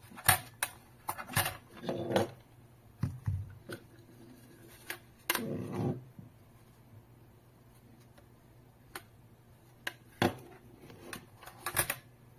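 Handling noise from a plastic Wi-Fi router being turned over and moved on a desk: a scatter of sharp clicks and knocks, with two longer rubbing sounds about two and five and a half seconds in.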